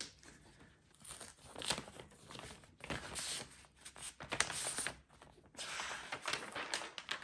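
A sealed paper envelope being torn open by hand, paper tearing and rustling in several bursts.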